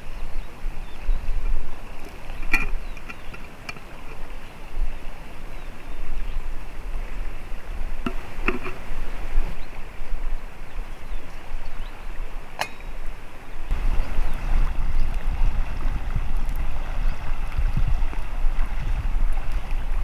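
Wind rushing past the microphone, buffeting more heavily from about two-thirds of the way through, with a few light clicks from a teapot lid and tea tin being handled over campfire embers.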